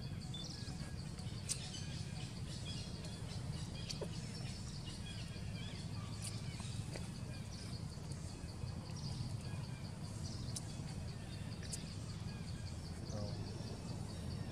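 Outdoor wildlife ambience: a steady low rumble under an insect's fast, evenly pulsing high-pitched trill, with scattered short bird chirps and a few faint clicks.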